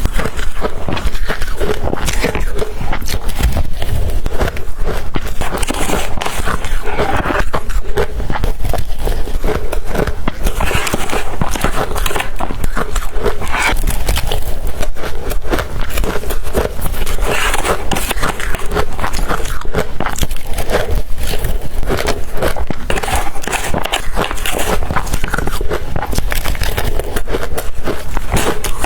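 Close-up crunching of blender-crushed ice being bitten and chewed, a steady run of dense, crackly crunches.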